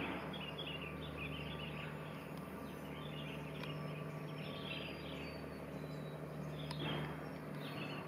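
Small birds chirping in quick twittering clusters over a steady low hum, with one brief click near the end.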